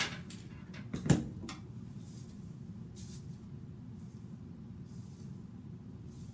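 A few light clicks and one sharp knock about a second in as a plastic hairbrush is set down and a comb picked up, then soft swishes of a comb through wig hair, over a steady low hum.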